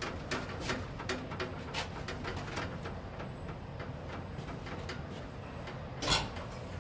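1975 KONE inclined traction elevator in motion: a quick, irregular clicking about three times a second that fades after a few seconds over a low running hum, then one loud knock near the end.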